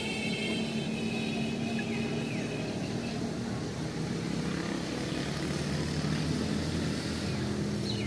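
A steady low mechanical hum, like an engine running, with a few faint high chirps over it.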